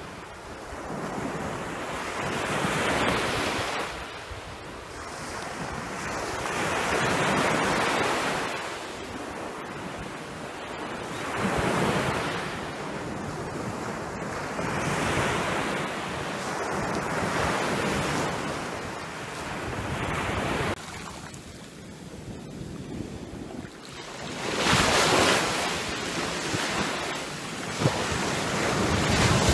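Sea waves breaking and washing in, the rush swelling and ebbing every three to four seconds, with wind buffeting the microphone.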